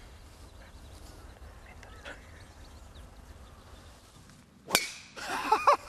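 A golf driver striking a teed ball: a single sharp crack a little under five seconds in, loud enough that onlookers call it an amazing sound.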